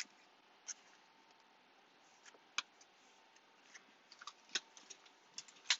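Trading cards being handled: scattered sharp clicks and snaps of cardboard cards being flipped and shuffled against each other.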